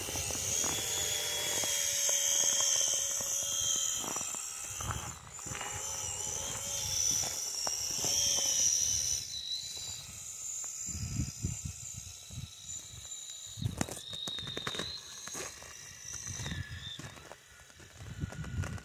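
Whine of a Traxxas TRX-4 RC crawler's electric motor and gearbox driving its Traxx snow tracks, rising and falling in pitch with the throttle. A few low thumps come in the second half.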